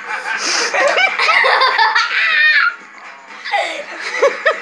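People laughing hard in repeated peals, with a brief lull about three seconds in.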